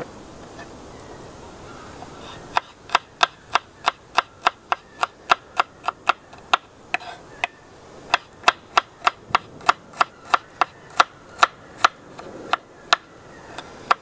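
Knife chopping garlic cloves on a wooden cutting board, the blade tapping the board about three times a second. The chopping starts about two and a half seconds in and pauses briefly midway.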